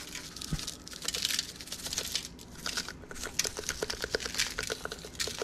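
Lemon pepper shaken from its shaker over fish fillets on a foil-lined baking sheet: a run of quick, light ticks and rattles, with aluminium foil crinkling and a soft thump about half a second in.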